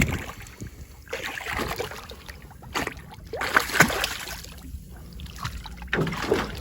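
Small fishing boat on the water: scattered knocks and clatter on the hull with bits of water splashing, over a low rumble.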